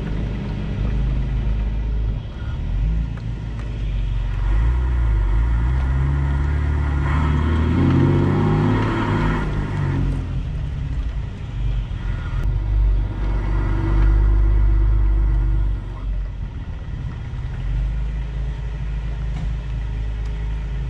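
4WD engine running as it drives along a dirt track, its note shifting up and down in pitch around the middle with the throttle, over a steady low rumble from the tyres and the road.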